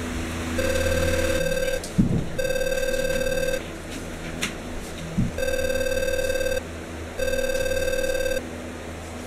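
Telephone ringing with an electronic double ring: two pairs of rings, each ring a little over a second long. Two dull thumps come between them, the louder one about two seconds in and another about five seconds in.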